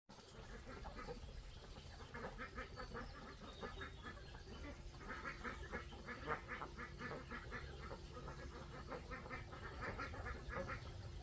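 Ducks quacking in quick runs of short repeated calls, several a second, over a low background rumble.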